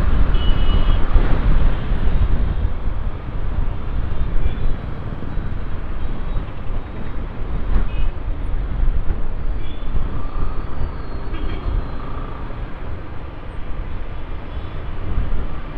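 Wind buffeting the microphone of a moving motorcycle, a dense low rumble that flutters in level, over the running of the bike and the surrounding road traffic.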